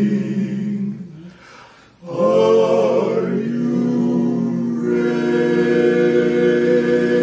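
A cappella vocal group singing held chords without words. Their last chord dies away about a second in. After a brief dip the voices come back in at about two seconds and move to a new sustained chord near five seconds.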